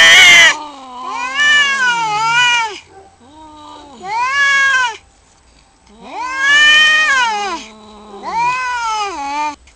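Two male domestic cats caterwauling in a territorial standoff: a series of long, wavering yowls with short pauses between them. A harsh, noisy hiss or screech comes right at the start.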